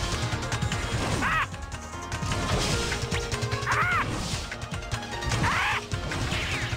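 Cartoon action sound effects: repeated crashes and whacks over background music, with a few short squeaky chirps.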